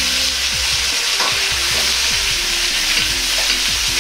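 Pork and sliced bamboo shoots sizzling in hot oil in a Chinese wok, with a metal ladle stirring and scraping them in repeated strokes. The chili bean paste and ginger are being fried into the oil.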